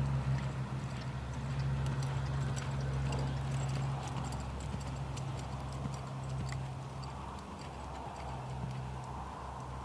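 Horse hoofbeats, a scatter of irregular clicks and thuds, over a steady low hum that briefly drops away about three-quarters of the way through.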